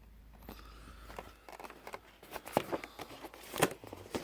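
Packaging of a boxed collectible figure being handled and opened by hand: a run of clicks, taps and crinkles that starts about a second and a half in and grows busier.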